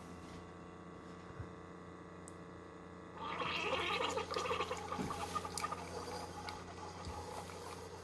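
Keurig K-Cafe single-serve coffee maker brewing an 8 oz cup from a K-Cup: a steady machine hum, then about three seconds in the brewed coffee starts gurgling and splashing into a glass mug.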